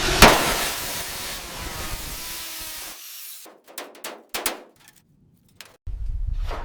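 Workshop tool noise: a hissing power tool with a sharp knock near the start, then a few scattered taps and clicks, then a steady low hum near the end.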